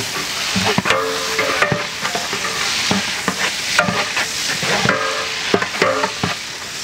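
Sliced onions frying in deep oil in a large aluminium pot, sizzling steadily, while a long-handled metal ladle stirs them, clinking and scraping against the pot many times.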